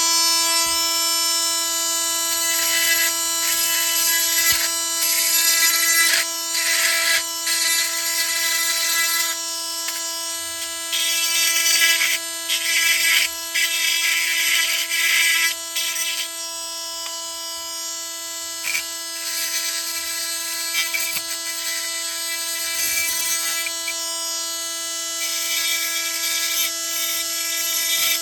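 Milwaukee M18 oscillating multi-tool running with a steady high-pitched hum, its blade cutting into plastic rivets, with irregular rough scraping each time it bites into the plastic.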